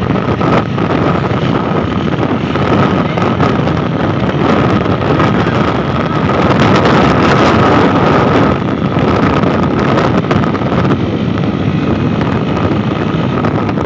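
Wind rushing over the microphone on a moving motorcycle, with the bike's engine running underneath as a steady noise.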